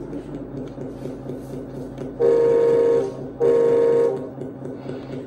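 An RC truck's electronic sound module playing a truck engine running at idle, with two loud horn blasts about two and three and a half seconds in.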